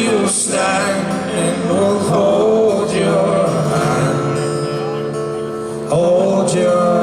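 Live band music: several male voices holding long sung notes in harmony over acoustic guitar, with a louder chord coming in suddenly about six seconds in.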